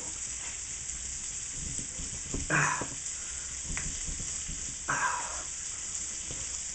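Small kitchen knife scraping curls off a block of dark chocolate on a wooden cutting board: faint scrapes and clicks over a steady background hiss. Two short vocal sounds from the man, about two and a half seconds in and again about five seconds in.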